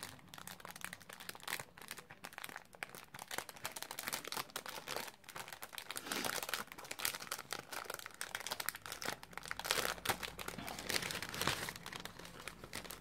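Clear plastic bag and paper die-cuts crinkling and rustling as they are handled, getting busier and louder about halfway through.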